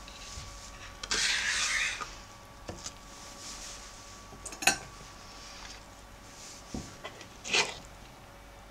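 Kitchen handling noises while filling cabbage rolls: a rustle lasting about a second as the leaf is handled on the board, a sharp clink a little after the middle, and a metal spoon scraping through minced meat in a plastic bowl near the end.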